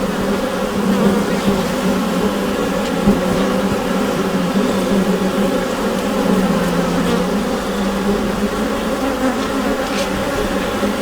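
Bees inside a beehive, the colony buzzing together as a dense, steady hum with a low drone at its base.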